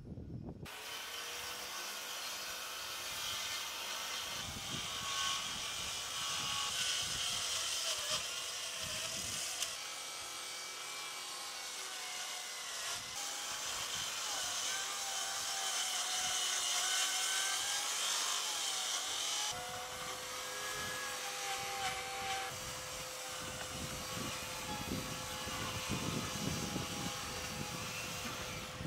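Festool track saw cutting through a thick live-edge hardwood slab along its guide rail, with a dust extractor running on the hose. The saw starts just under a second in and runs steadily under load, its motor pitch sagging and wavering as it bites into the wood, and the sound changes about two-thirds of the way through.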